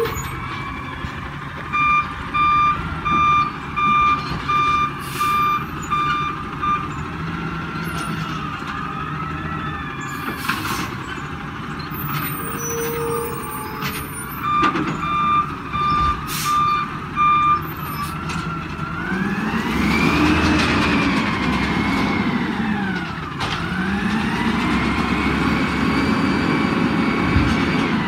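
Peterbilt 320 garbage truck backing up, its reversing alarm beeping steadily in two runs over the engine's whine. After the beeps stop, the engine revs up and falls back twice.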